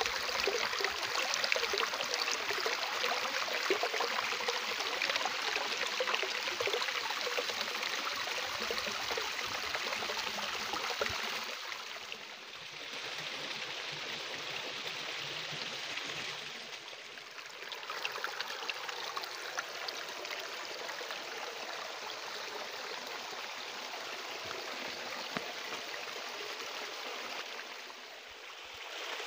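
Small mountain stream trickling and splashing over rocks into a shallow pool, a steady rush of running water that drops a little in level about twelve seconds in.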